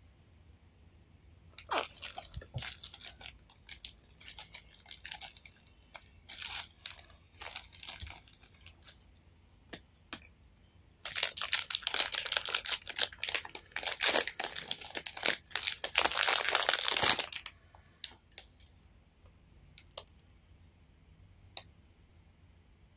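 Foil wrapper of a blind-box toy being handled and torn open: scattered bursts of crinkling, then about six seconds of dense crinkling and tearing as the figure is pulled out.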